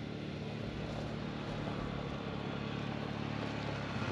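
A vehicle running steadily: a low engine hum over an even road-like noise, with no change in pitch or level.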